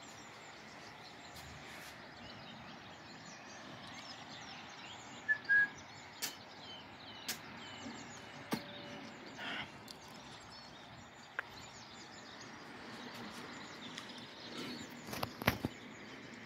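Quiet outdoor ambience with birds chirping now and then over a steady background hum, one short bird call standing out about five seconds in. A few sharp clicks sound, the loudest close together near the end.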